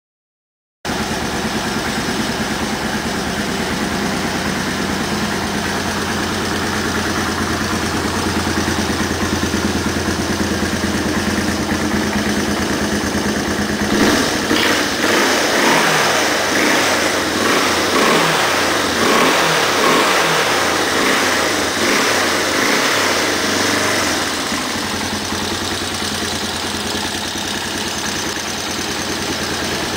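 Yamaha Moto 4 200 ATV's single-cylinder engine idling steadily. About halfway through it grows louder and uneven for some ten seconds, then settles back to a steady idle.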